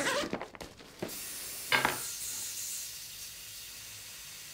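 Fabric camera bag being handled: a short rustle, a click about a second in and a brief scuff just before two seconds, then a steady hiss.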